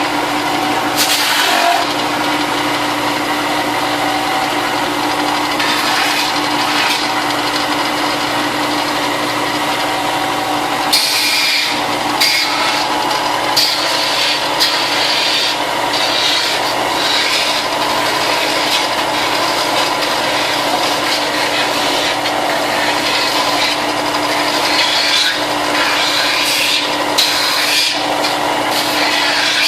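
Electric sander running steadily while sanding the edges of plastic stormtrooper armour pieces, a motor hum under a continuous rasping grind that shifts a little as the part is moved against it.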